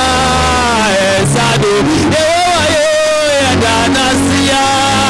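A man singing a gospel song into a microphone, with long held notes that waver in pitch, over steady instrumental backing.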